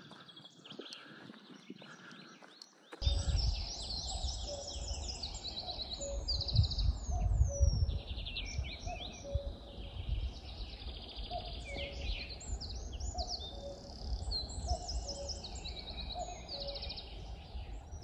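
Soft footsteps on a dirt path, then from about three seconds in a dense chorus of woodland songbirds with many overlapping songs and trills, and one repeated note about every second. A low rumble of wind on the microphone runs underneath the birdsong.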